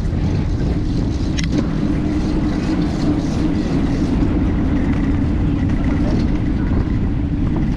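Steady low rumble from riding a bicycle along a city street: wind buffeting the microphone, with tyre noise on the tarmac.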